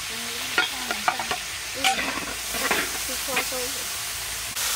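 Food sizzling in a hot pan while being stirred, the utensil clicking and scraping against the pan now and then. The sizzle steps up louder shortly before the end.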